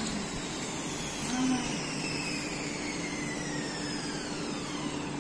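Steady rushing machine noise with a constant low hum and whines that fall slowly in pitch.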